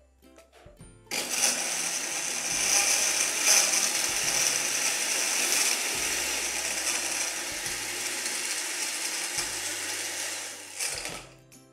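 Countertop electric blender running, crushing ice cubes with mint leaves and lemon juice into a mojito. It starts about a second in, runs steadily for about ten seconds and stops near the end.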